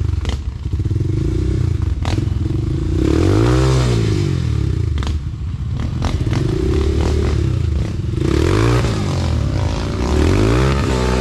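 Enduro dirt bike engine under riding, its revs rising and falling about four times as the throttle is opened and closed, with scattered knocks and rattles from the bike.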